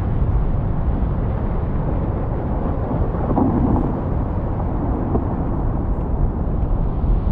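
Distant glacier calving: a steady low rumble from a collapsing ice front, with wind on the microphone.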